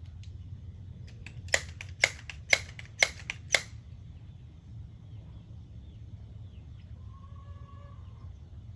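A quick run of sharp metallic clicks from handling the Crosman 1377 pellet pistol: five loud clicks about half a second apart, with a few fainter ones among them.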